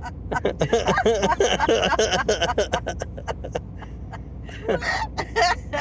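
A person laughing in short chuckling bursts, with a second bout near the end, over the steady low rumble of a car driving on the highway.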